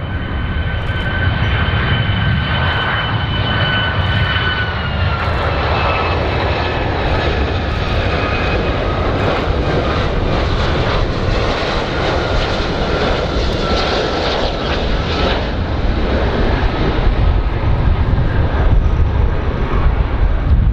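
Boeing 757-200's twin Rolls-Royce RB211 turbofans on a low landing approach: a steady engine rumble with a high whine that steps down in pitch about four to five seconds in, then drops again later. The rumble grows a little louder near the end as the aircraft comes closer.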